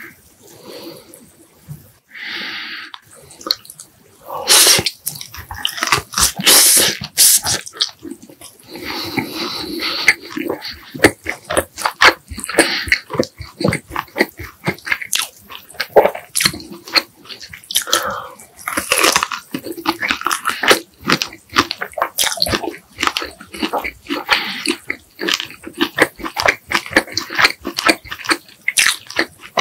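Close-miked eating: a person biting and chewing food, with a dense run of sharp, wet mouth clicks and smacks. It is sparse for the first few seconds, then continuous.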